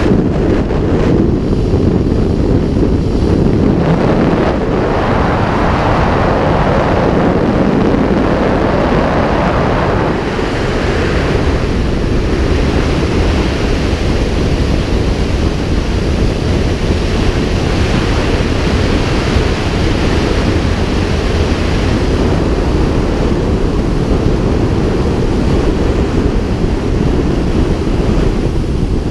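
Loud, steady rush of wind buffeting a camera microphone mounted outside a glider's canopy in flight, heavy in the low end. It eases a little about ten seconds in.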